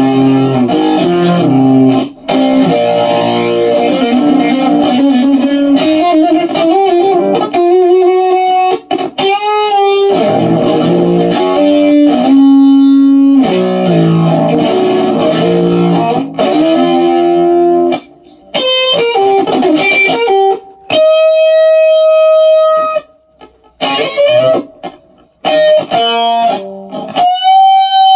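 Telecaster-style electric guitar played solo: quick, busy runs of notes and chords for most of the first eighteen seconds, then short phrases broken by pauses, with long held notes about two-thirds of the way through and again at the end.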